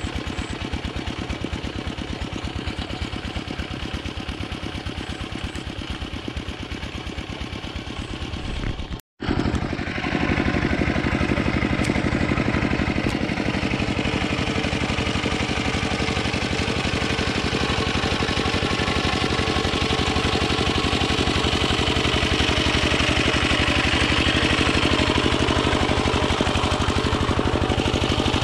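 Yanmar two-wheel hand tractor's single-cylinder diesel engine running steadily under load while harrowing a flooded rice paddy. The sound drops out for a moment about nine seconds in, and the engine is louder after it.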